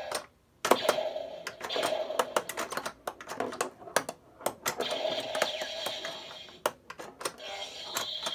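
Battery-powered Star Wars tabletop pinball game in play: plastic flippers and the steel ball clicking and clattering, with the game's electronic blaster-fire and lightsaber sound effects coming on in bursts as the scoring targets are hit. There is a brief gap near the start.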